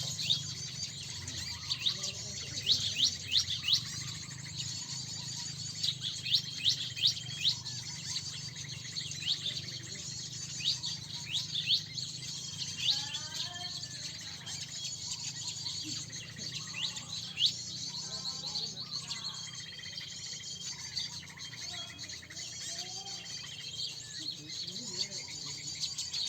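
Many small birds chirping and calling together: runs of quick, sharp, high notes with a few short held whistles, over a low steady hum.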